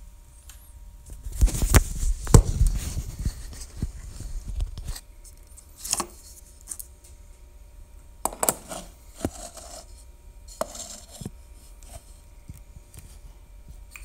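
Handling noise from a phone being moved and set up right at its own microphone: a cluster of knocks and rubbing about two seconds in, then scattered clicks and bumps.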